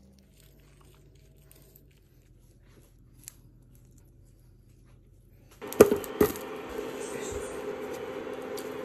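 Faint handling sounds, then, about two-thirds of the way in, two sharp knocks as ingredients go into a metal pot on the cooktop, followed by a steady hiss from the pot.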